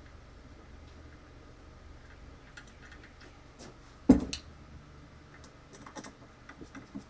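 Small metal parts of a drill press motor bracket being handled and fitted by hand: light scattered clicks and taps, with one sharp knock about four seconds in and a few quick clicks near the end as a screwdriver goes to a screw.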